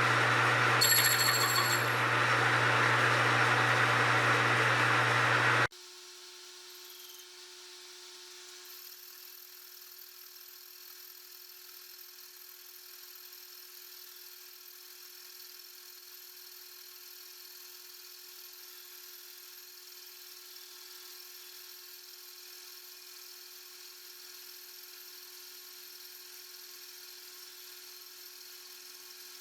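Metal lathe running while turning a steel plate: a loud, steady machining noise that cuts off abruptly about six seconds in, leaving a much fainter steady motor hum.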